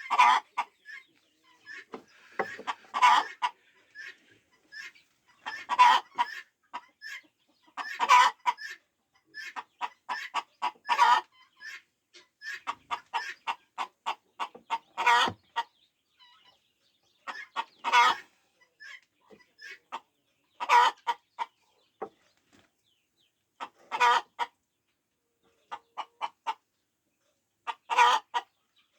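Chickens clucking in short bursts every couple of seconds.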